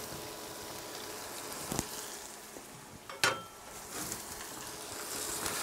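Ham cubes frying softly in a steel pot under cream cheese and grated cheddar, a steady light sizzle. There is a faint knock about two seconds in and a sharper metallic clink a little after three seconds.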